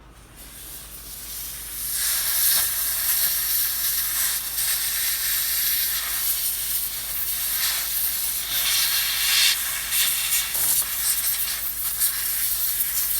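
Compressed-air duster spraying a long, steady hiss onto an iPhone X logic board to cool it down after component removal. The hiss builds over the first couple of seconds, then holds loud and even.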